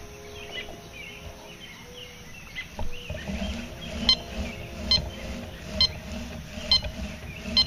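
Fisher F2 metal detector beeping as its coil is swept back and forth over a buried coin: a short, sharp high beep repeating about once a second, the detector responding to the coin as a target. Fainter lower tones come in the first few seconds, and a low rumble runs beneath from about three seconds in.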